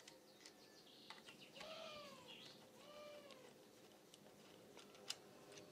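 Faint clicks and taps of a tool on the cam chain tensioner bolts of a TGB 50cc four-stroke scooter engine as the tensioner is taken off. Twice, about a second and a half and three seconds in, a short high whine rises and falls.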